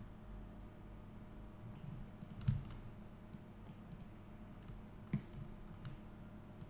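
Scattered clicks of a computer mouse and keyboard, starting about two seconds in, with one louder knock midway, over a low steady hum.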